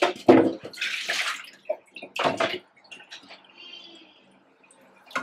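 Water splashing and sloshing in a stainless steel sink as raw mutton pieces are washed and tipped from a steel bowl into a pot of water, with a few knocks of the steel pans. The loudest splashes come in the first two and a half seconds, the biggest about a second in, then it turns quieter.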